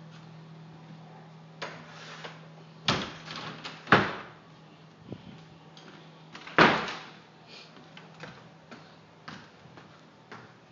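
Irregular knocks and thumps in a wooden cabin, the three loudest about three, four and six and a half seconds in, with fainter clicks between, over a steady low hum.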